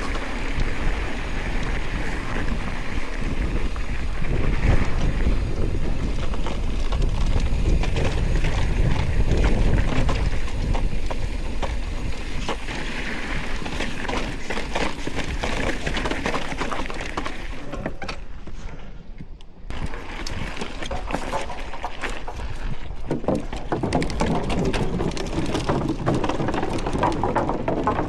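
Bicycle rolling fast along a rough forest trail: wind buffeting the microphone and the bike rattling over bumps in quick clicks and knocks, easing briefly about two-thirds of the way through.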